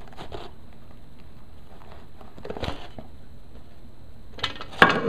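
Handling noise of a clear plastic cup and paper towel: faint rustles and taps, then a louder cluster of sharp plastic clicks and scrapes near the end.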